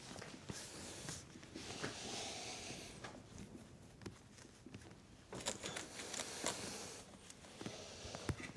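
Faint rubbing of a cloth wiping ceramic coating over a bike frame, in two stretches of strokes with a few small knocks and clicks between them.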